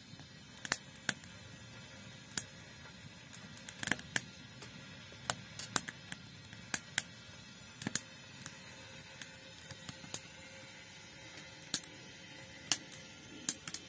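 Firewood crackling in a small glass-fronted tent wood stove, with irregular sharp pops about once a second. Quiet background music plays underneath.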